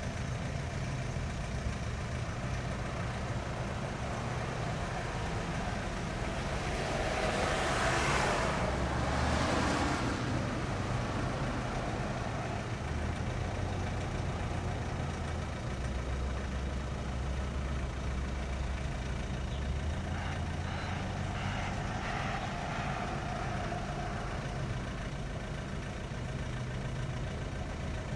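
Steady low engine hum. A broad rushing noise swells and fades about seven to ten seconds in, and a fainter one comes near the end.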